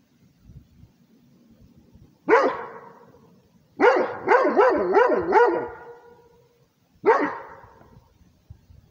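Rhodesian ridgeback barking territorially: one bark, then a quick run of about five barks, then a single bark near the end.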